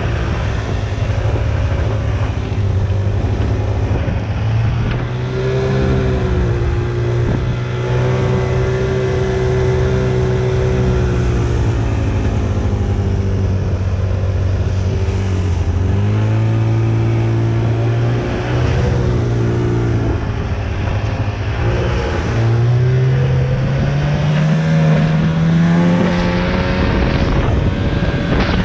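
Snowmobile engine running steadily while riding, its pitch rising and falling as it speeds up and slows, climbing again near the end.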